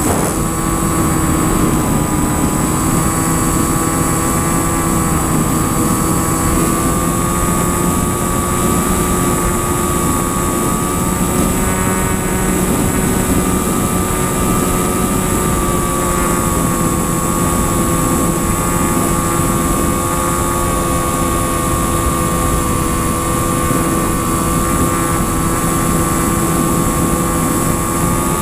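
Aircraft in flight, its engine drone holding a steady, nearly constant pitch throughout.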